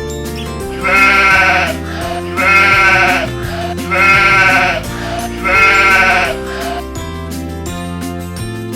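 Sheep bleating four times, evenly spaced, each call a wavering cry of under a second, over light background music.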